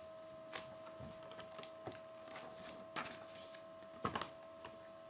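Room tone: a steady faint electrical hum, with a few soft clicks and rustles, the loudest about four seconds in.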